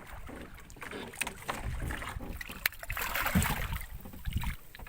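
Water splashing and sloshing around a small fishing boat, with scattered knocks and clicks, and a louder splash about three seconds in.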